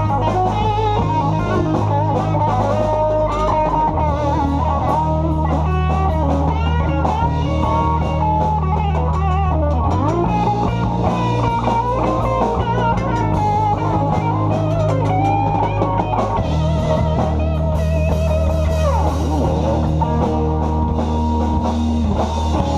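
Live rock band playing an instrumental passage on electric guitars, bass, keyboard and drum kit, amplified through the band's PA. The guitar lines bend and waver in pitch over held bass notes that change every few seconds, with a steady drum beat throughout.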